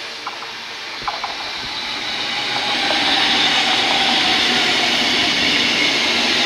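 Red DB Regio electric multiple unit running into and along the station platform: a rushing rail noise that grows louder over the first three seconds, then holds steady. A faint whine falls slightly in pitch, and a couple of sharp clicks come in the first second or so.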